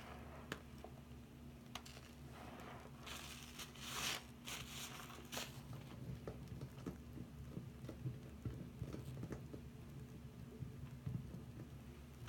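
Soapy sponges squeezed and kneaded by hand in a sink full of foam: wet squishing and crackling bubbles, loudest in a stretch of bursts a few seconds in. A steady low hum runs underneath.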